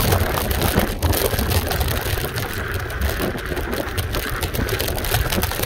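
Kaabo Mantis electric scooter on hybrid tyres riding a rough dirt track: a steady low rumble of wind and tyre noise with frequent rattles and knocks as it runs over the bumps.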